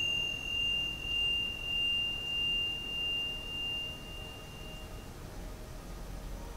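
A single high, pure ringing tone from a struck metal chime, swelling and fading slowly in loudness as it rings out, dying away about five seconds in.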